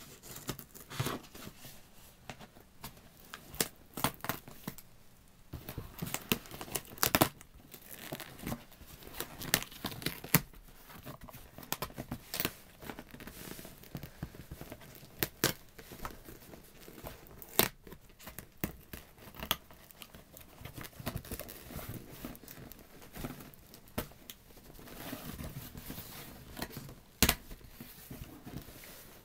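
Scissors cutting and scraping along the packing tape on a cardboard shipping box, then the tape being peeled and torn off and the cardboard flaps handled, with many irregular sharp clicks and snaps over a low rustle.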